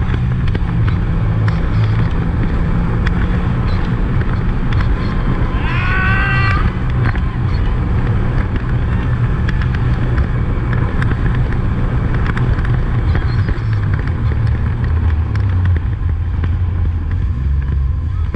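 Jet ski engine running at speed, with water spray and wind rushing over the microphone. A brief high-pitched cry comes about six seconds in, and the engine note drops lower near the end.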